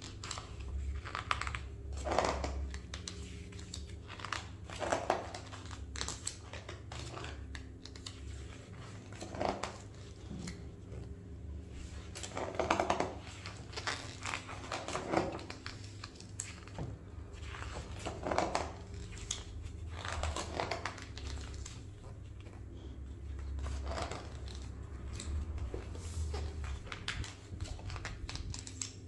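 Pages of a large hardback photography book being turned one after another, each turn a short paper swish and rustle, coming every two to three seconds.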